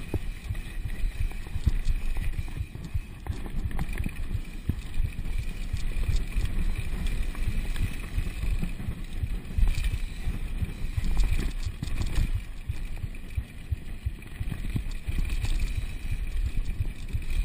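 Downhill mountain bike descending a rough dry dirt trail. The knobby tyres rumble over the ground while the bike rattles and knocks over rocks and ruts, with wind buffeting the microphone.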